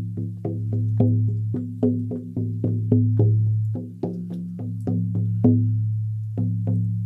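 An 18-inch buffalo skin frame drum on an ash frame, struck with a firm beater in a steady beat of about three to four strokes a second. Each stroke leaves a deep ringing boom that carries on under the next. The beat slows near the end, with a short pause and then two last strokes.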